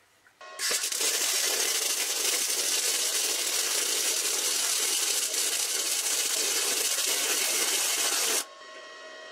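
Electric arc welding on the steel sledgehammer head: a loud, steady crackling hiss that starts about half a second in and cuts off abruptly near the end, leaving a quieter steady hum.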